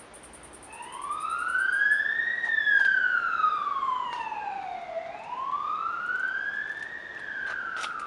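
Emergency vehicle siren in wail mode: a slow tone that rises, falls and rises again, each sweep taking about two to two and a half seconds. It is loudest a couple of seconds in.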